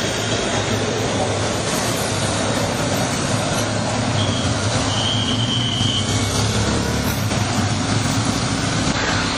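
A group of motorcycles riding past at low speed, their engines running together in a steady drone. A brief high tone sounds twice around the middle.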